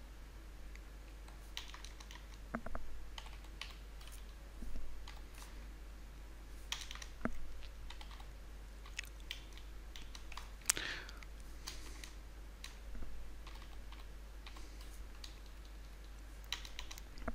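Computer keyboard keystrokes, faint and irregular: single presses and short runs of a few keys with pauses between.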